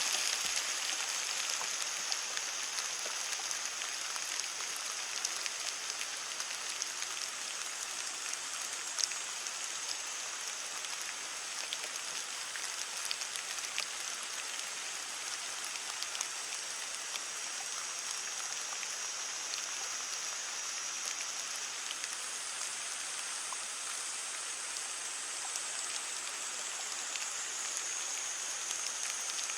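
Heavy rain falling steadily on leaves: a constant hiss scattered with sharp ticks of individual drops striking, one louder tick about nine seconds in.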